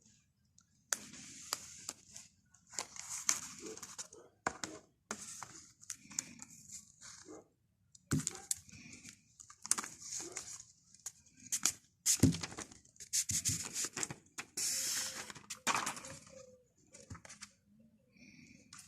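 Packaging being handled and torn open: irregular tearing and crinkling rustles mixed with sharp clicks and knocks.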